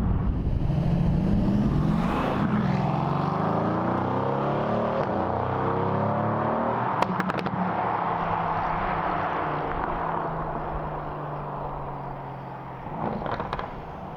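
Mercedes-AMG GT S (C190) twin-turbo V8 with a flap sport exhaust, pulling hard out of sight. Its pitch climbs and drops back in steps as it shifts through several gears. A few sharp exhaust cracks come about seven seconds in, then the engine settles to a steady note and fades away.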